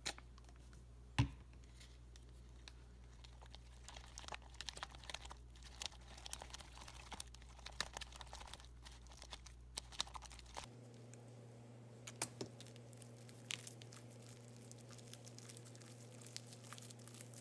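Red glitter-glue slime being mixed and then kneaded and stretched by hand as a detergent activator firms it up: faint, sticky crackling, tearing and small clicking sounds, with one sharper click about a second in.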